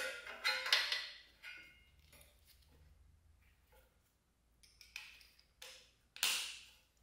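Light metallic clicks and rattles of hands and parts being handled on a small pressure-washer engine, with a short scraping rustle about six seconds in.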